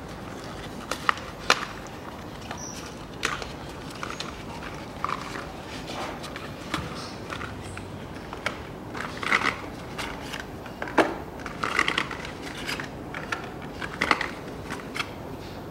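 Small cardboard spark-plug boxes being opened and handled: scattered sharp clicks and taps with short bursts of crinkling packaging, as the boxes are set down on the plastic engine cover.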